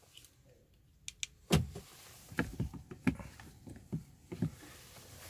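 Irregular knocks and clicks inside a car cabin, as of someone shifting about and handling things in the rear seat. A couple of light clicks come about a second in, then a louder thump, then several more scattered knocks.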